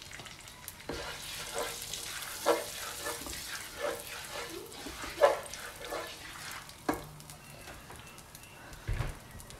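Cumin and red chilli powder sizzling in hot desi ghee in a kadai for a tadka, while a spatula stirs and scrapes around the pan in several strokes. A low thump near the end.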